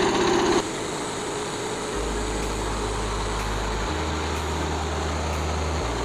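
Frontier OS27 portable band sawmill's gasoline engine running steadily. It drops suddenly in level about half a second in and then runs on more quietly.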